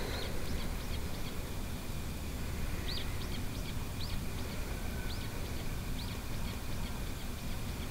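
Small birds chirping outdoors: short, high, arched notes scattered through, most of them bunched from about three to six seconds in, over a steady low rumble of background noise.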